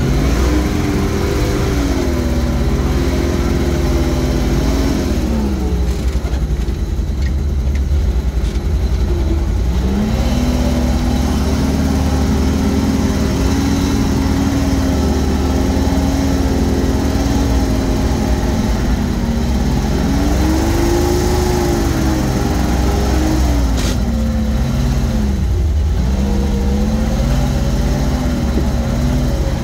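GAZ-66 truck's engine running under load as the truck drives over rough stony ground, heard from inside the cab, with a constant deep rumble. The engine note rises and falls several times, dropping low about six and ten seconds in and again near the end.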